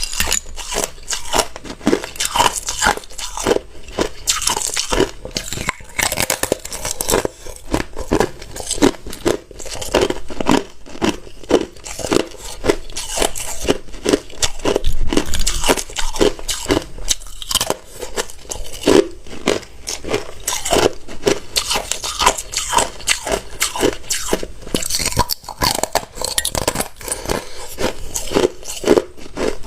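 Hard ice being bitten and chewed: a continuous run of sharp crunches and cracks, one bite after another.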